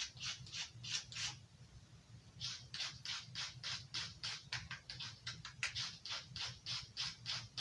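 Knife blade drawn in quick rasping strokes across a handheld abrasive sharpener, about four strokes a second, with a brief pause about a second and a half in before the strokes resume.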